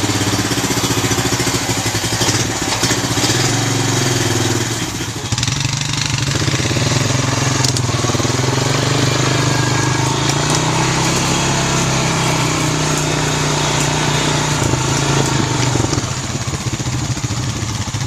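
Honda Rancher ATV engine running with the throttle held open after a carburetor rebuild, kept from stalling because its idle is set too low. The level dips briefly about five seconds in.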